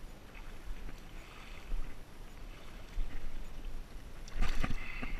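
Water splashing as a hooked smallmouth bass thrashes at the surface while being landed, with a few separate splashes and the loudest cluster near the end.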